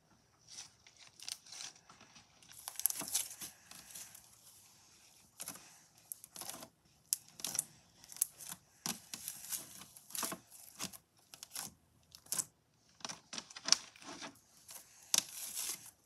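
Glossy pink slime being stretched, squeezed and pressed by hand, giving off irregular sticky clicks, pops and crackles as it pulls apart and its trapped air bubbles burst.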